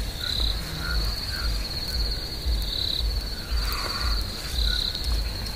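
Insects, likely crickets, trilling steadily at a high pitch, with louder pulses about every two seconds. A low, uneven rumble runs under the trill.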